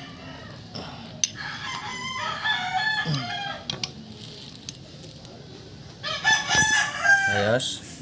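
Rooster crowing in two long bouts, the second and louder one about six seconds in, with a couple of sharp clicks between them.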